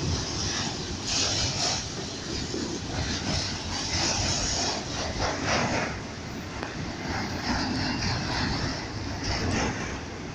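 Freight train rolling past: a steady, wavering rumble and hiss of wheels on rail.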